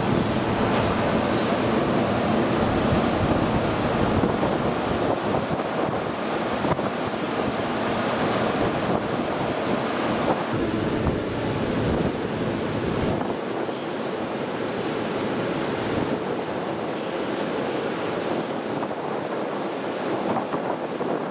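JR East E233 series 5000 electric train rolling slowly along the platform and coming to a stand, heard as a steady rumbling noise under wind buffeting the microphone. The deepest part of the rumble falls away about halfway through.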